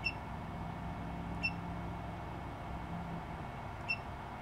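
Lerdge 3D printer controller's touchscreen buzzer giving three short high beeps, one for each press of the back button, over a low steady hum.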